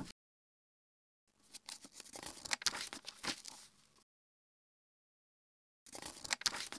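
Pages of a paperback picture book being turned by hand: two bouts of paper rustling and crinkling, with small clicks of the page, the second starting near the end.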